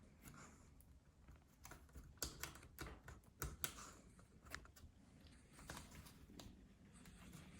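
Faint, scattered small clicks and taps of fingers and a tool working inside an opened MacBook Air, pressing the new battery's cable connector onto the logic board. Most of the clicks fall in the middle few seconds.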